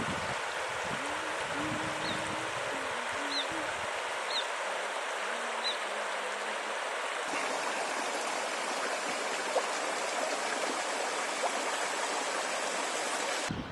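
Water of a shallow, rocky stream running steadily over stones.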